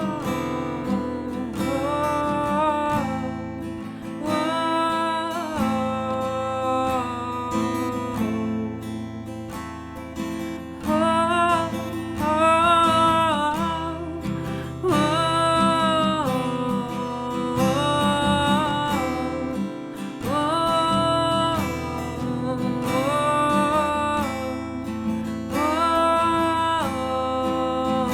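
A woman singing long wordless 'oh' phrases over strummed acoustic guitar, each note held a second or two and sliding between pitches.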